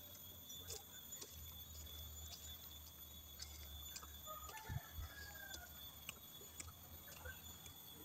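Quiet outdoor ambience of steady high-pitched insect droning, with scattered faint ticks and a few faint bird chirps about halfway through.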